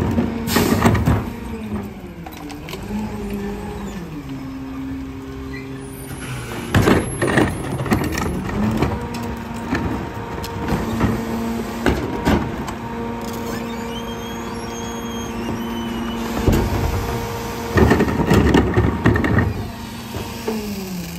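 Rear-loader garbage truck's diesel engine running up to speed and dropping back several times to drive the packer hydraulics. Loud clanks and bangs of plastic carts being tipped and knocked against the hopper.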